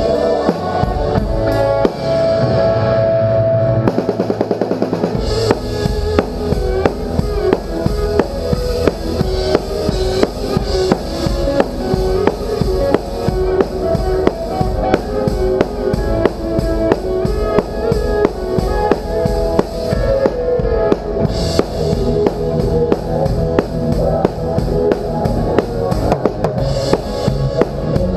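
Live rock band heard up close at the drum kit: a held chord, a quick drum fill about four seconds in, then the drums keep a steady beat under the band. The sound is picked up by the camera's built-in microphone mounted on the kit.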